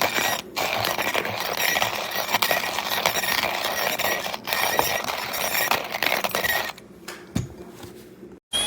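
KitchenAid KCG8433 burr coffee grinder grinding beans: a dense, gritty crackle with two very brief breaks, dropping to a much quieter level about seven seconds in.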